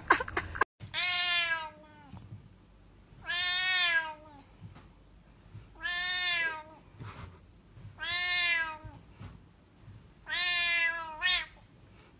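A cat meowing five times, about two seconds apart. Each is a long, drawn-out call that rises and then falls in pitch, and a short extra meow follows right after the last.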